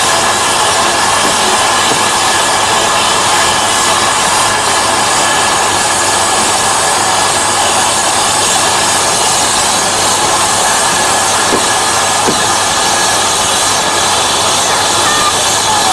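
Train running, a steady loud rail noise, with a couple of faint clicks about three quarters of the way through.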